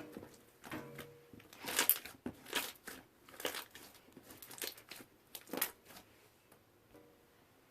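Fluffy slime being squeezed and worked by hand, giving short bursts of crackles and bubble pops about once a second, the loudest about two seconds in.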